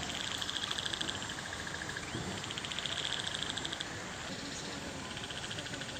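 Small animals calling in a chorus: high, fast-pulsed trills in repeated bouts of about a second, over a steady background hiss.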